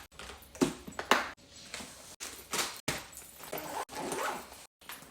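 A boy coughing: a series of harsh coughs in short bursts, the two loudest close together about a second in, the sign of a bad chest cold.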